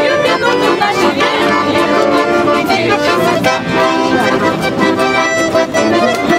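Fantini button accordions playing a tune together.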